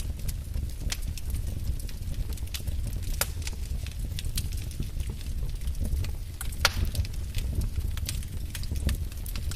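Wood fire crackling: scattered sharp pops and snaps at irregular intervals over a steady low rumble, with one louder pop about two-thirds of the way through.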